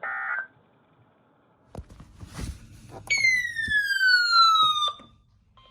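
The tail of an Emergency Alert System end-of-message data burst, a short warbling squawk that ends about half a second in. A few clicks and a rush of noise follow. Then, loudest of all, a siren-like electronic tone slides steadily down in pitch for about two seconds, starting and cutting off abruptly.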